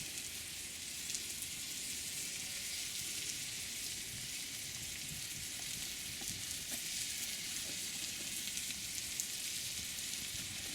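Pork steak frying in a hot pan: a steady sizzling hiss with scattered small crackles of spitting fat.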